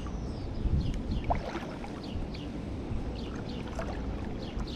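Steady low rumble of wind buffeting the microphone outdoors, with many short, high, falling chirps scattered over it.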